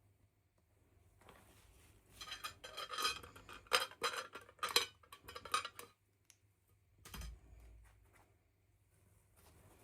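Small hard plastic pieces clicking and clattering as they are handled, in a dense run of sharp clicks over a few seconds, followed by a single dull thump.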